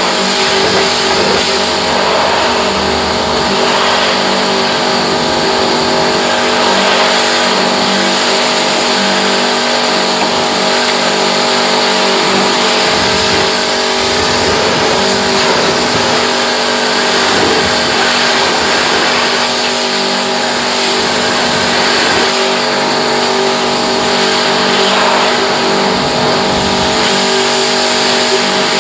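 Pressure washer running steadily: a constant motor-and-pump hum with several fixed tones under a loud, even hiss of water spray.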